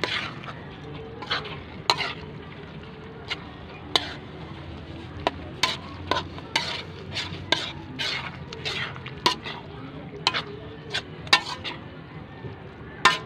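Metal spatula scraping and knocking against a large aluminium wok as meat and vegetables are stirred in coconut milk. The strokes come irregularly, one or two a second, over a steady sizzle of cooking.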